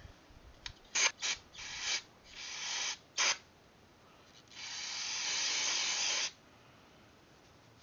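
Aerosol carb cleaner sprayed from the can into a Kohler CV15 carburetor to flush out dirt: several short spurts, then one longer spray of about two seconds.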